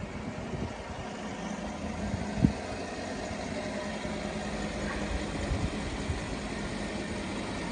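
Volkswagen Touareg's 5.0-litre V10 TDI diesel engine idling steadily, with one brief thump about two and a half seconds in.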